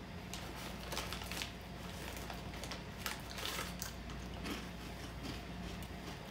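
Two people biting into and chewing crunchy Cheetos corn snacks: a run of short, crisp crunches.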